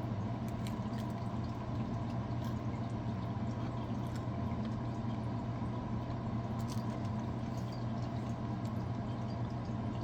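A person chewing a crispy pizza snack, faint scattered crunches and clicks over a steady electrical hum.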